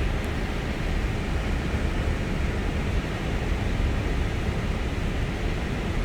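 Steady noise inside an Airbus A320's flight deck: a low rumble with an even hiss of air over it.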